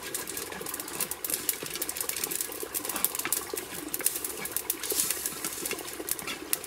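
Hot oil sizzling and spitting in a clay pot, a dense run of quick sharp crackles, as a tempering is fried.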